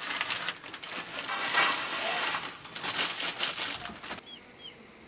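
Food sizzling in hot oil in an iron wok over a wood fire, a steady hiss with the fire crackling through it. It cuts off abruptly about four seconds in, and two short, high, falling bird chirps follow.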